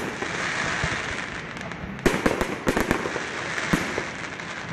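Aerial fireworks shells bursting: a crackling haze at first, then a sharp bang about two seconds in followed by a quick string of reports and crackles.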